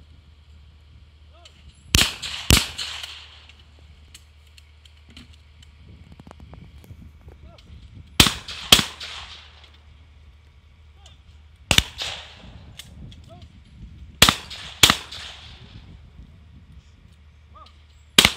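Shotguns fired at clay targets on a trap (fosse) line, shooters taking turns: eight sharp shots with a short echo after each, mostly in pairs about half a second apart, as the second barrel follows the first at the same target.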